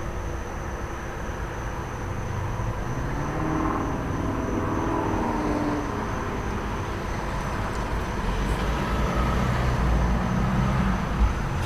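Steady low rumble of traffic and an idling truck engine, with a vehicle passing and swelling louder about midway. Crickets trill steadily throughout as a thin high tone.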